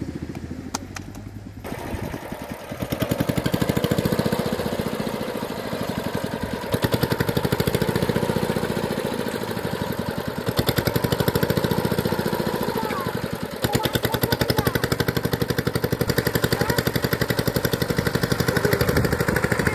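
A small engine running steadily with a fast, even pulse, getting louder about three seconds in.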